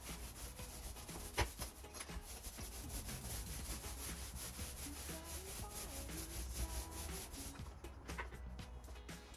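Paint roller rolling paint onto a wooden stable wall: a continuous rubbing sound, with one sharp knock about a second and a half in.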